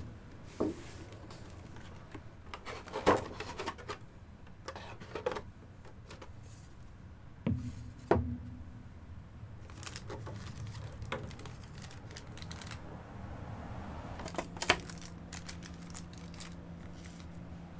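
A boxed figure's packaging being opened and its parts handled: scattered clicks, scrapes and knocks, a few of them sharper.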